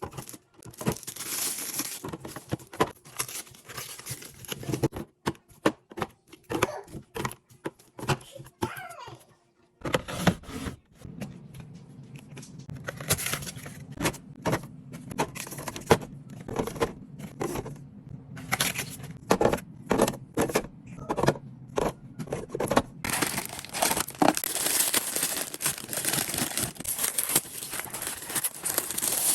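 Plastic packaging and bags crinkling, rustling and tearing, with quick knocks and clatter as groceries are handled. A low steady hum comes in about ten seconds in.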